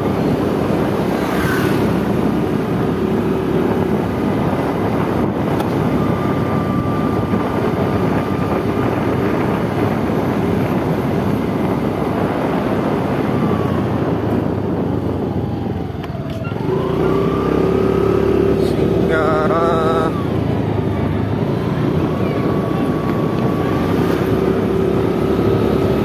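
A road vehicle's engine running under way, with wind and road noise. Its whine drops as it slows about sixteen seconds in, then climbs again as it speeds up. A brief warbling tone comes a few seconds later.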